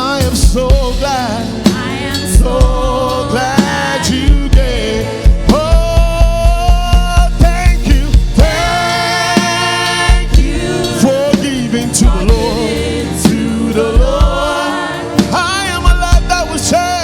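Live gospel music: a singer's held, wavering notes over the band, with a drum kit's bass drum. A fast run of bass-drum beats comes about five seconds in and lasts a few seconds.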